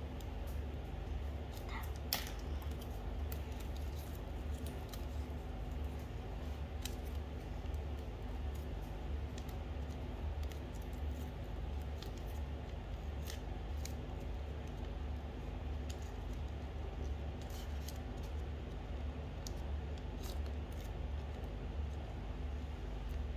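Coloured origami paper being handled and creased by hand: scattered small paper clicks and crinkles, with one sharper click about two seconds in, over a steady low hum.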